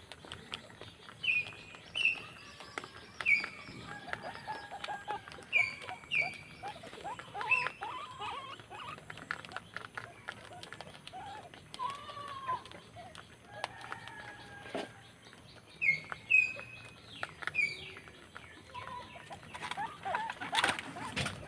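Short, high chirping animal calls that fall slightly in pitch, coming in clusters about a second apart. Scattered small clicks and a few lower, arched calls sound between them.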